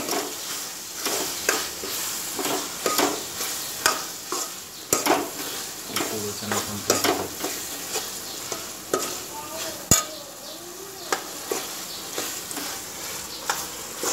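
Metal ladle stirring boiled chickpeas through a sizzling masala in a metal kadai, scraping and clinking irregularly against the pan over a steady frying sizzle, with one sharper knock about ten seconds in.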